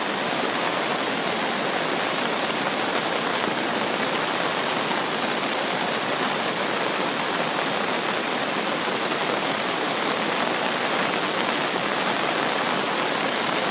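Flash-flood water rushing steadily in a steady, unbroken roar, the stream swollen far past its usual width by hours of heavy rain.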